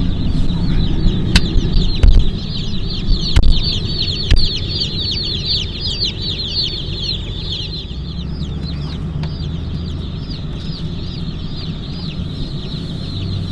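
Many newly hatched mail-order chicks peeping together, a dense stream of short, high, falling cheeps that thins out after about eight seconds, over a steady low rumble and a few sharp knocks.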